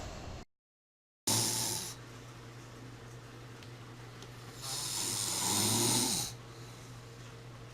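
A person snoring: a short snore about a second in, right after the sound cuts out completely for a moment, and a longer snore about five seconds in.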